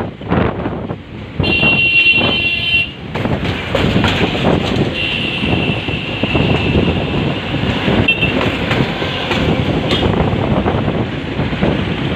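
Vehicles passing on the Saraighat bridge, a steady rumble of traffic. A horn sounds for about a second and a half near the start, and a long high steady tone runs from about five to eight seconds in.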